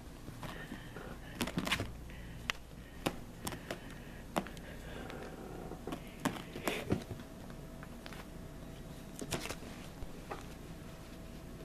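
Scattered light taps and rustles of close handling, a kitten and a hand moving right at the microphone, irregular and a few a second at most, over a faint steady hum.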